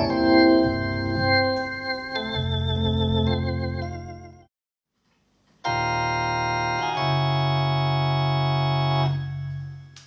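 Hammond organ chords played through a Leslie speaker's treble horn, the notes wavering in pitch and level as the horn spins in the first half. The sound stops about halfway through, then a sustained steady chord sounds and dies away near the end.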